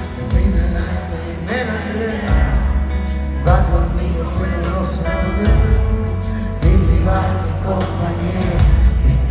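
A live pop-rock band playing with a heavy bass, and a singing voice coming in and out over it, heard from the audience seats in a large hall.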